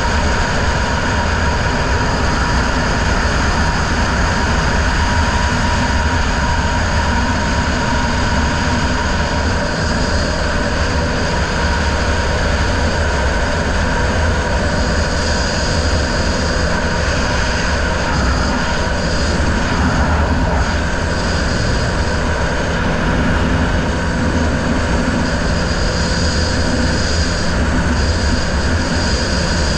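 River race boat's outboard motor running steadily under way, mixed with a constant rushing noise of wind and water.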